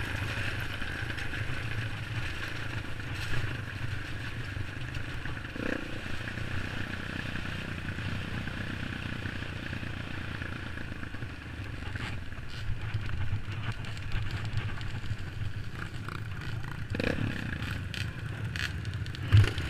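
Dirt bike engine running steadily under load while riding a rough trail, with a few knocks and clatters from the bike over bumps.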